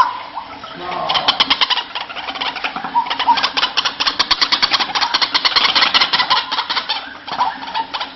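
White-breasted waterhen (ruak-ruak) calls: a fast chattering series of harsh notes, about ten a second, starting about a second in and thinning out near the end.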